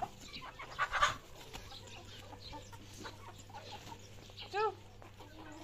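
Chickens clucking, with one short, sharp call near the end. A brief burst of noisier sounds comes about a second in, over a faint steady hum.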